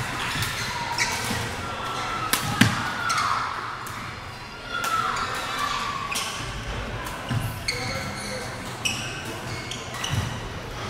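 Badminton rally: sharp racket hits on the shuttlecock, the loudest about two and a half seconds in, with sneakers squeaking on the court floor, over the chatter of spectators.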